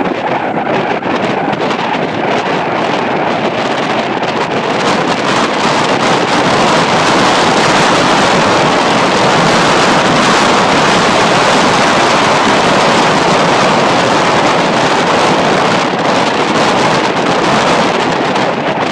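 Loud, steady rush of wind buffeting the microphone while moving fast downhill, mixed with rolling road noise. It swells for several seconds in the middle as the speed builds, then eases a little near the end.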